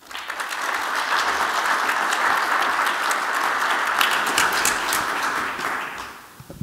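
Audience applauding, many hands clapping in a steady patter that fades out near the end.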